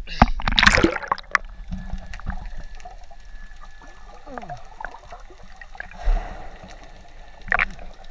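Water sloshing and gurgling around a camera as it goes under the surface about half a second in, then muffled underwater sound with faint clicks. Near the end a person jumps feet-first into the sea, a brief muffled splash and rush of bubbles heard from underwater.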